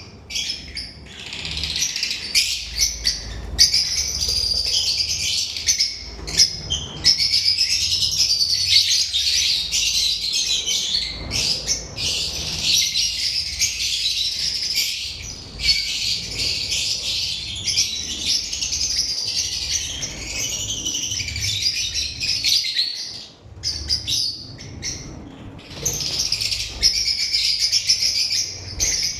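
Lovebirds chirping and chattering in a dense, high, almost unbroken twitter, with a short lull about two-thirds of the way through.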